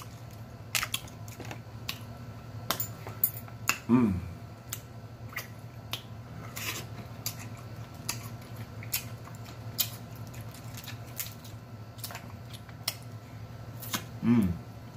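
Snow crab legs being handled and eaten by hand: scattered sharp clicks and snaps of shell cracking, with mouth sounds of chewing and lip smacking. A short voiced hum of enjoyment comes about four seconds in and another near the end.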